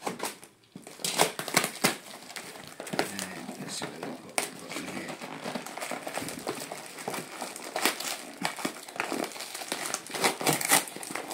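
A parcel wrapped in brown packing tape being cut open with a utility knife, then its cardboard and tape wrapping pulled and torn apart: an irregular run of crinkling and crackling with sharp clicks.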